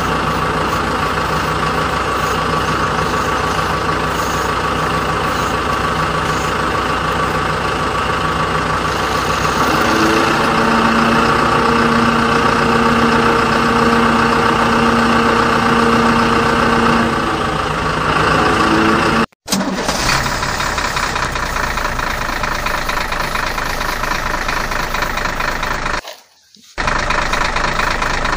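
Truck engine running steadily. A steady tone joins it from about ten to seventeen seconds in, and the sound cuts out briefly twice, near nineteen and twenty-six seconds.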